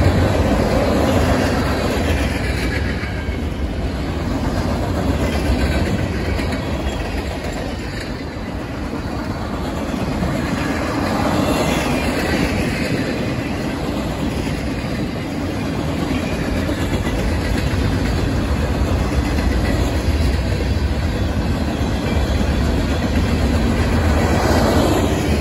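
Cars of a mixed freight train (gondolas, flatcars, covered hoppers and tank cars) rolling past close by: a steady rumble of steel wheels on rail.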